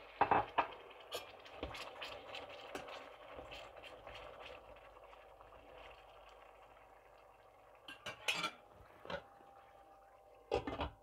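Metal slotted spatula clinking and scraping against a stainless steel pan of fish curry, which sizzles softly, the sizzle fading as it settles. About eight seconds in the spatula clatters down into a second pan, and near the end a glass lid clinks onto the curry pan.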